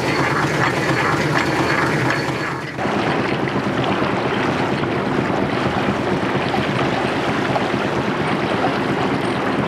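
A steam launch's engine running with a quick, even beat, heard close by the boiler fittings; about three seconds in it gives way to water rushing and splashing along the hull of the moving boat.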